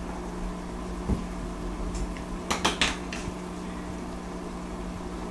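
Steady low electrical hum with a few sharp clicks: one about a second in, then three in quick succession about two and a half seconds in.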